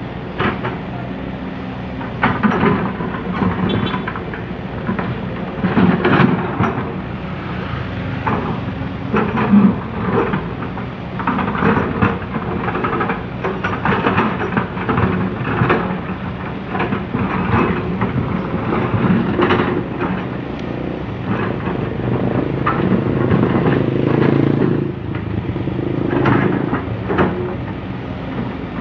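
Komatsu PC200CE hydraulic excavator running under load as it digs soil. Its engine swells and eases, with frequent short knocks and clatters from the bucket and boom.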